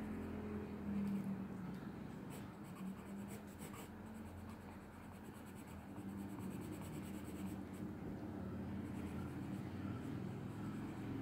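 Watercolour pencil scratching across textured watercolour paper as it shades in colour with continuous back-and-forth strokes.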